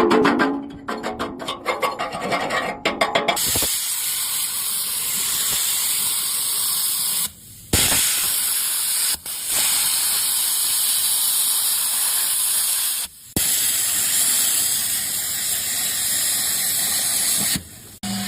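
Electric arc welding on an excavator arm: a steady frying hiss of the arc that stops briefly and restarts several times.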